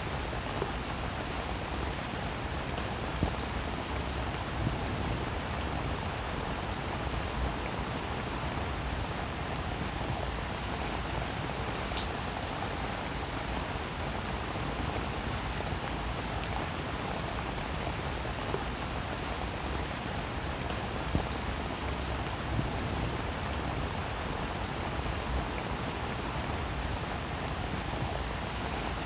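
Steady rain-like hiss with scattered faint ticks.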